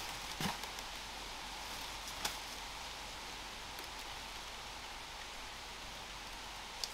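A few footsteps and rustles in dry leaf litter and stones as a person climbs a slope: one about half a second in, one a little after two seconds, and one near the end, over a steady background hiss.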